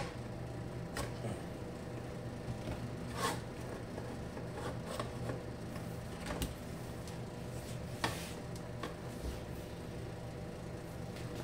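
Scattered light clicks and knocks of hands handling the opened plastic-and-metal housing of a tourniquet machine, its hinged front panel and internal parts, about four or five separate knocks, over a steady low hum.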